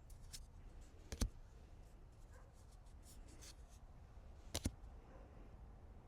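Cards being handled: faint rustling and scraping, with a sharp tap about a second in and two quick taps a little past the middle.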